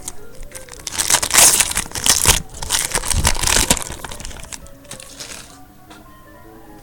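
Crinkling and tearing of a trading card pack wrapper being ripped open, in a run of crackly bursts lasting a few seconds, with a shorter rustle near the end. Faint background music.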